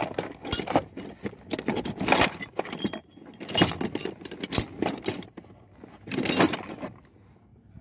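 Irregular metallic clinking and rattling of tools and spare parts in a toolbox, in short uneven bursts that stop about seven seconds in.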